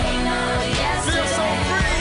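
Background pop music.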